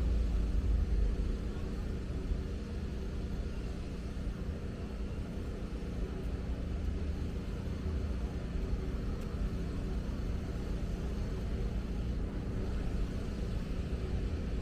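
Steady low rumble of distant city traffic, with stronger low surges about a second in and again around seven seconds.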